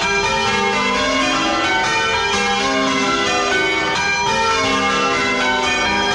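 Church bells of a 10 cwt ring swinging full circle in change ringing, heard close up in the belfry: an even, unbroken succession of bell strikes whose long ringing tones overlap.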